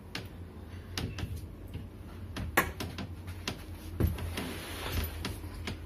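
Wooden wardrobe cabinet being handled: a series of light knocks and clicks from its door and shelves, the loudest about two and a half and four seconds in, over a steady low hum.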